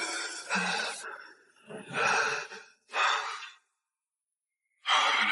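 A person breathing hard in about four heavy, audible breaths and sighs with short pauses between them, the panting of someone who has just had a fright.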